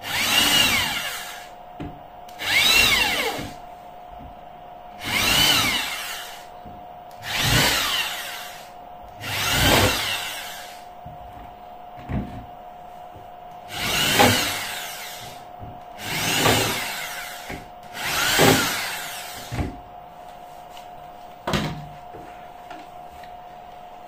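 Handheld electric drill backing the mounting screws out of a 12-inch speaker's frame in a wooden cabinet: eight short runs, each spinning up and winding down. A few light knocks come between the later runs and after them.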